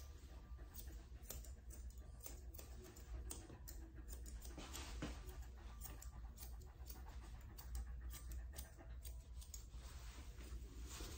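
Grooming shears snipping through a dog's coat in quick, irregular, quiet snips over a low steady hum.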